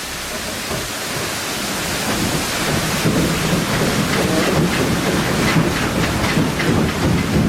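Water-powered sawmill machinery running: a steady loud rushing with a dense, fast rattle that grows stronger about three seconds in.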